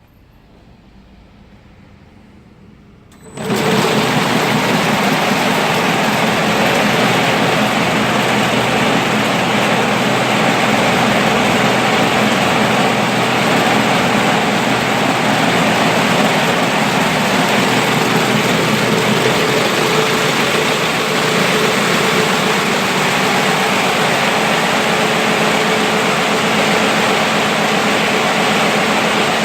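A 16-spindle high-speed rope braiding machine starting up about three seconds in and then running steadily at speed: a loud, dense, even mechanical rush with a steady low hum underneath.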